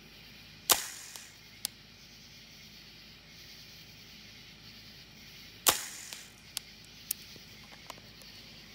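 Tippmann M4 airsoft rifle firing two single shots about five seconds apart, each a sharp pop that trails off briefly. Fainter clicks follow each shot.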